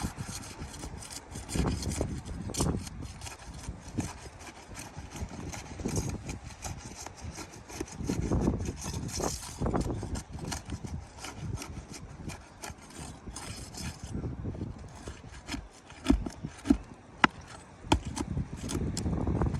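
Irregular scraping and rubbing as asphalt roof shingles are worked loose with a hand tool, with scattered sharp knocks; a few louder knocks come near the end.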